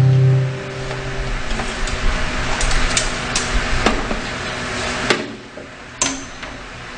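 The last strummed acoustic guitar chord of the song dies away, followed by a run of handling clatter: several sharp knocks and clicks over a rough background rustle.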